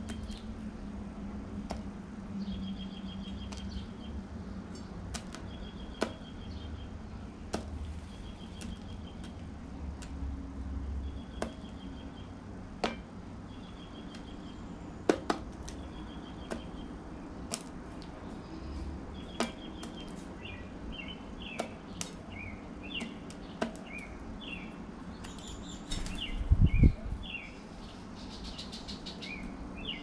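Blue jay pecking seeds and nuts from a plastic dish feeder, sharp clicks at irregular intervals, with small birds chirping in the background: a short rapid note series repeating every couple of seconds, then quicker chirps in the last ten seconds. A loud low flutter near the end, as of wingbeats with the jay taking off.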